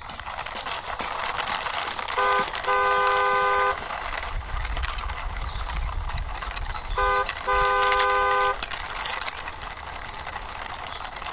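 Toy racing car pushed along by hand, its wheels and gearing giving a steady whir. Its electronic horn beeps short-then-long twice, about 2 and 7 seconds in, and starts again near the end.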